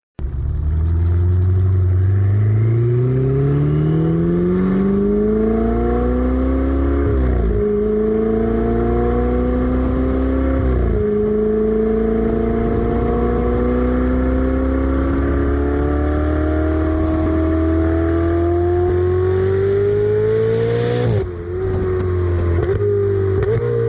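Ferrari Spider engine accelerating through the gears: the engine note climbs steadily, drops sharply at upshifts about seven and eleven seconds in, then rises in one long pull. Near the end the note dips briefly, wavers, and settles at a high steady pitch.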